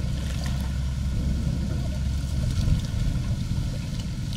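Steady low engine rumble with a constant faint hum, with a few light splashes of water.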